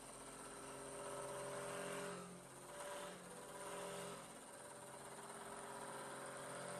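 CMS Aries 5-axis CNC machining center running: a faint, steady motor whine whose tones shift every second or so as the machine works.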